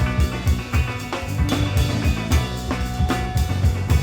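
Live band of guitar, banjo, bass, drum kit and violin playing an instrumental stretch of a rock song, the drums keeping a steady driving beat under held notes.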